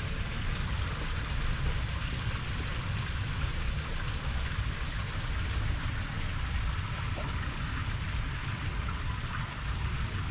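Steady rush of running water with a low rumble underneath, even throughout.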